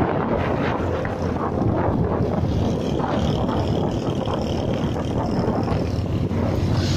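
Motorcycle engine running steadily at road speed, heard from on the bike, with wind rushing over the microphone and road noise.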